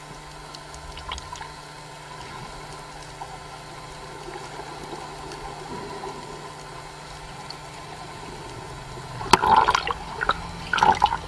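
Steady underwater water noise with a low hum, as heard through a submerged camera. About nine seconds in, a sharp click is followed by loud, rough sounds that come again near the end.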